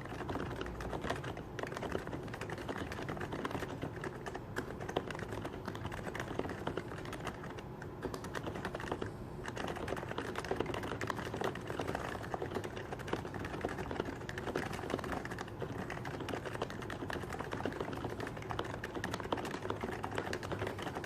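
Typing on a Happy Hacking Keyboard Professional 2 Type-S, its silenced Topre electro-capacitive keys making a fast, steady stream of soft clacks, with a couple of brief breaks near the middle.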